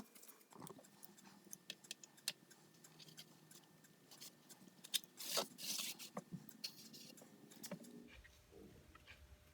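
Faint scattered clicks and light taps of hand work on a metal toolbox, with a brief hissy rubbing or spraying sound about five seconds in.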